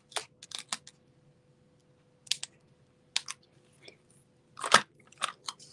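Scattered light clicks and taps of paper cardstock being handled and pressed down on a craft mat, as foam adhesive dimensionals are set on a card and a die-cut piece is laid onto them. The loudest is a firmer press about three-quarters of the way through.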